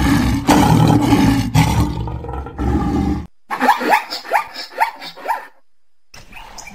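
A lion's deep, rough roar for about three seconds, cutting off abruptly, followed by a zebra's barking call: a quick run of about six short, rising yelps.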